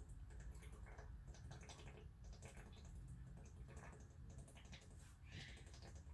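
Faint gulping and swallowing while drinking steadily from a plastic water bottle, heard as a string of small, irregular clicks.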